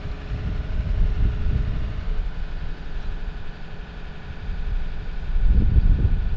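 Hyundai wheeled excavator's diesel engine running while its hydraulics tilt and turn the tiltrotator, a steady rumble that grows louder about five seconds in.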